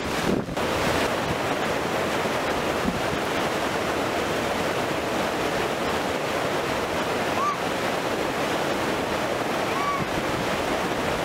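Steady rushing of white water pouring over a concrete fishway step at a river weir. Two brief chirps near the end.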